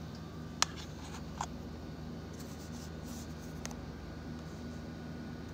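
Handling noise: a sharp click about half a second in, then a few lighter clicks and faint rubbing, over a steady low electrical hum.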